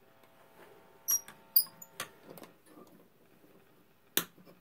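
AM tube radio of a 1951 RCA Victor 2S7 giving a faint steady buzz over soft static, with a few sharp clicks about a second in, around one and a half to two seconds in, and near the end. The buzz is interference noise picked up from a nearby fluorescent light.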